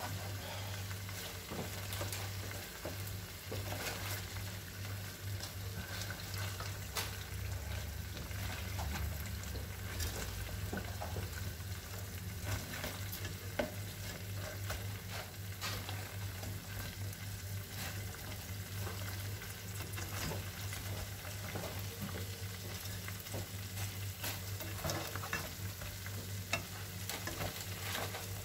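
Tuna-cauliflower balls sizzling in tomato sauce in a pan as they are turned over with plastic tongs, with frequent light clicks and knocks of the tongs against the balls and pan, over a steady low hum.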